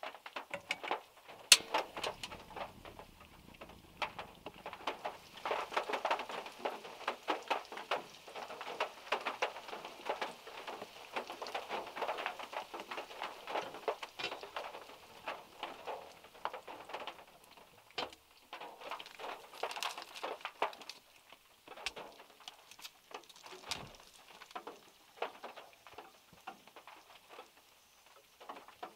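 Raindrops and drips from overhanging trees pattering on a small car's roof, heard from inside the car: a dense spatter of separate ticks, heavier through the first half, with one loud drop about a second and a half in.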